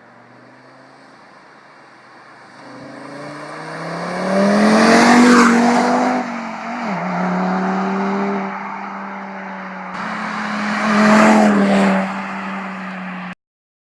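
Audi TT RS turbocharged five-cylinder engine accelerating hard, loud about five seconds in, settling to a steady note, then loud again near the end before the sound cuts off abruptly.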